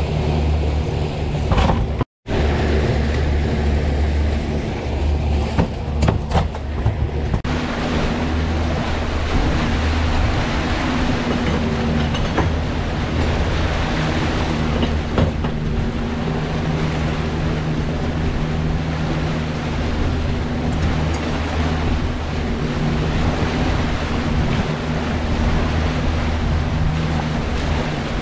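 Suzuki 300 V6 four-stroke outboard running steadily under the rush of water churning in the wake. The sound cuts out for an instant about two seconds in, and the engine's drone shifts slightly about seven seconds in.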